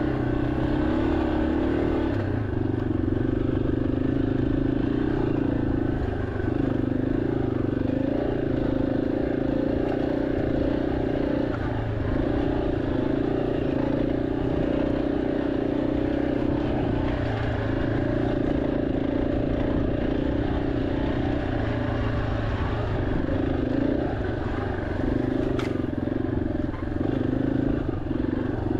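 2023 Yamaha XT-250's air-cooled single-cylinder four-stroke engine running steadily under way at low trail speed, its note dipping briefly every few seconds as the throttle eases and picks up again.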